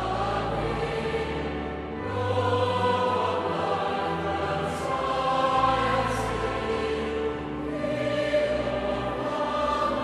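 A choir singing a hymn in slow, held notes over low sustained bass notes.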